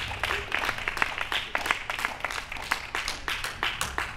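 A small audience clapping and applauding, with the separate claps heard quickly and irregularly, after the end of a jazz trio's tune.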